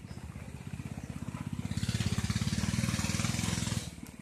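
Rain falling, with a steady low pulsing hum underneath. The rain hiss swells louder for about two seconds in the middle, then drops back.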